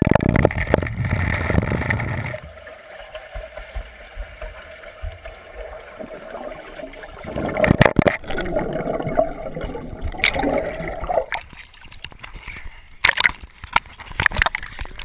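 Pool water gurgling and sloshing around a GoPro in its waterproof housing, muffled, with a louder rush of water at the start and a few more surges later.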